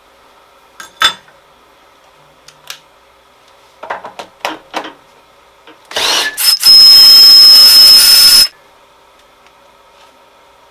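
Compressed air from an air-hose blow gun hissing hard for about two and a half seconds with a steady high whistle, after two short puffs, then cut off sharply. Before it come a few separate clicks and knocks.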